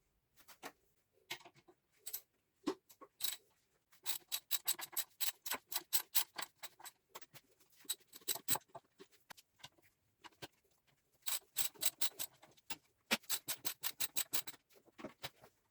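Runs of quick, sharp clicks and taps, several a second, coming in bursts with short pauses between them.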